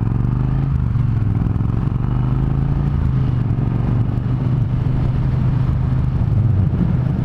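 Triumph Thunderbird Storm's parallel-twin engine under way, its note rising a little in the first second as the bike picks up speed, then holding a steady pitch.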